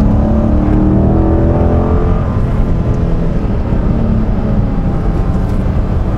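The 6.4-litre HEMI V8 of a Dodge Challenger Scat Pack, fitted with a K&N intake, heard from inside the cabin as the car drives. It pulls up through the revs over the first couple of seconds, then settles into a steady deep drone.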